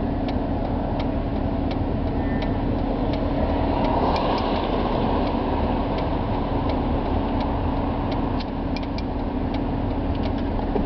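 Steady car engine and road noise heard inside the cabin, with scattered light ticks.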